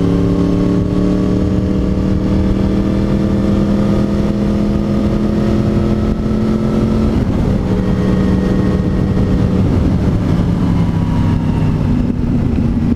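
Sport motorcycle engine running at road speed, its note slowly rising for about seven seconds, breaking up briefly, then settling again, with steady wind noise from riding.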